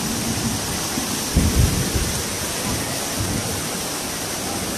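Heavy rain pouring down and muddy floodwater rushing through a street, a steady hiss, with a brief low rumble about a second and a half in.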